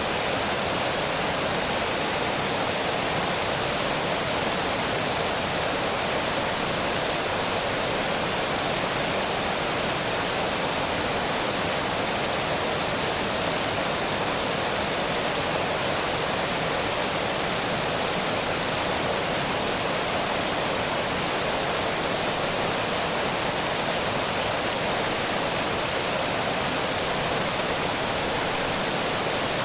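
Water pouring over a small dam, a steady, unbroken rush of falling water.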